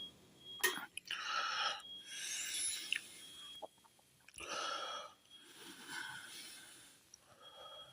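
A person breathing heavily close to the microphone: four wheezy breaths of about a second each.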